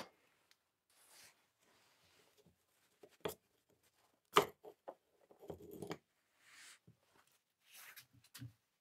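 Scattered light clicks and knocks of Makita 9005B angle grinder parts being handled while it is taken apart, the loudest about four and a half seconds in.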